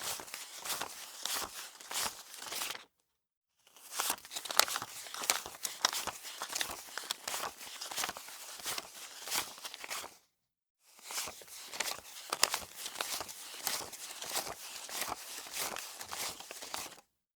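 Paper banknotes crinkling and rustling as they are handled, a dense irregular crackle, in three takes separated by two short silent gaps.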